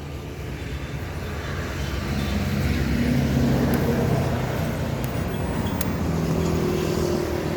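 A motor vehicle's engine running nearby, growing louder about two seconds in and then holding steady, with a few faint clicks.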